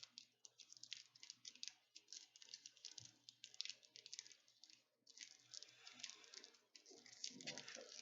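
Faint crinkling and crackling of a foil Pokémon booster pack wrapper being handled and torn open, in dense irregular crackles that thicken near the end.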